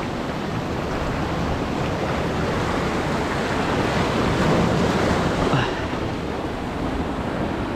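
Sea surf breaking against coastal rocks and washing through the channels between them, with some wind on the microphone. The wash swells a little about four to five seconds in, then eases.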